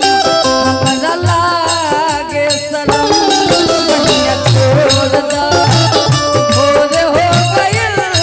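Live Bhojpuri folk stage music: a wavering melody over a regular low drum beat, with sharp percussion strokes throughout.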